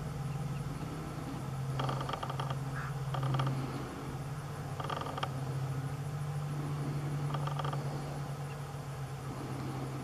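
A steady low engine hum, like an idling vehicle, runs throughout. Over it come four short bursts of rapid chattering bird calls.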